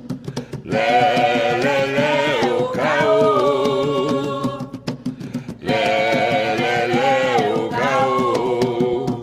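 Voices singing an Umbanda ponto cantado in long, wavering held notes, over atabaque hand drums struck in a steady rhythm. The singing pauses briefly near the start and again around the middle.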